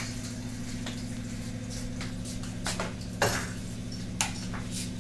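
Steel kitchen utensils and pots clinking and knocking on a counter and stove, several short knocks with the loudest about three seconds in, over a steady low hum.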